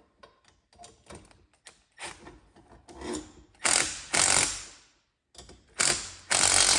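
A 13 mm nylon locking nut being snugged up with a wrench: a run of light clicks, then two bursts of fast ratchet-like clicking, one near the middle and one near the end.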